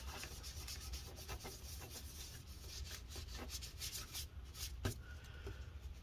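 A small white wipe is being rubbed back and forth over the plastic keyboard deck of a laptop in quick, faint scrubbing strokes. The deck is being dried of spilled coffee.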